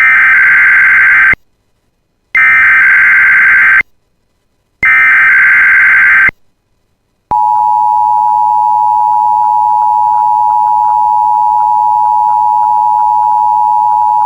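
Emergency Alert System alert tones: three short bursts of buzzing SAME digital header data, about a second apart, then the steady two-tone EAS attention signal starting about seven seconds in. The tones open a test tornado warning.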